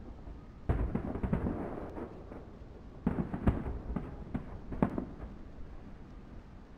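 Aerial firework shells bursting: a loud bang about a second in, a quick pair of bangs around three seconds, and another near five seconds, each followed by a low rolling rumble that dies away toward the end.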